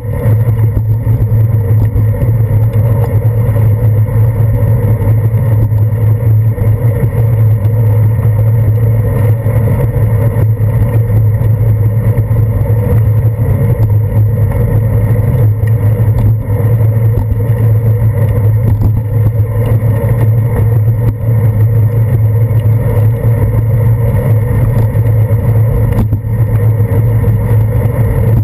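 Steady, loud low rumble of a bicycle riding over wet pavement: road vibration and wind noise picked up through a handlebar-mounted GoPro Hero 2 in its housing.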